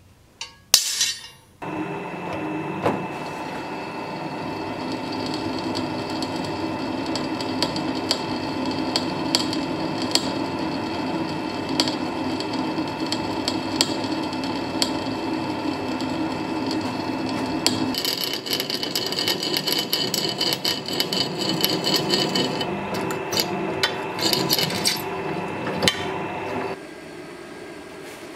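A few sharp clicks, then a drill press running steadily as it drills through the sword blank's spring-steel tang. Its sound changes about two-thirds of the way through, and near the end it gives way to a quieter steady rushing.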